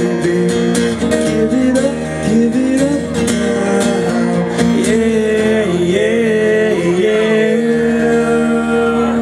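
Live acoustic guitar strumming with a singing voice holding long, wavering notes. The strums thin out after about three seconds while the held notes carry on.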